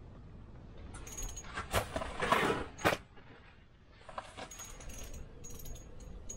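A burst of rustling and sharp knocks as an ice-fishing rod is snatched up to set the hook. From about four seconds in, the small reel is cranked in a fast run of light ticks as a hooked fish is reeled in.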